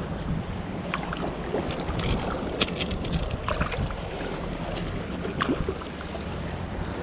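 Wind rumbling on the microphone over water lapping around a wading angler, with scattered short clicks and splashes as a hooked ladyfish is reeled to the surface and lifted out on a spinning reel.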